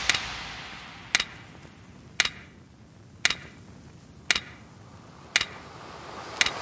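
A quiet break in the background music: a single sharp tick about once a second, evenly spaced like a clock, over a faint wash that swells up near the end.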